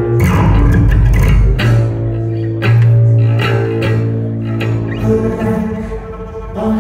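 Upright double bass played with a bow, holding long low notes one after another. Sharp struck attacks cut in over it.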